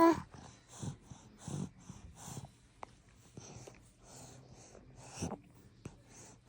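A pet's phlegmy breathing broken by hiccups: short, soft puffs and catches at irregular intervals, several within a few seconds.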